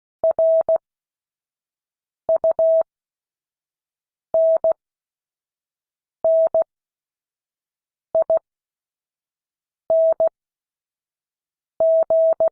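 Morse code sent as a steady mid-pitched tone, keyed in short and long elements. There are seven separate characters, each sent quickly with long gaps of about two seconds between them, the slow spacing used for copying practice.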